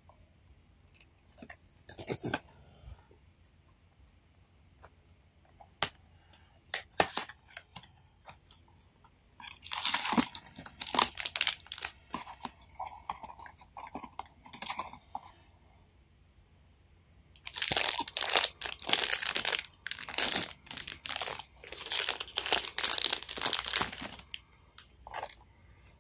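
A cardboard blind box being opened by hand: a few sharp clicks and taps, then two long stretches of tearing and crinkling packaging.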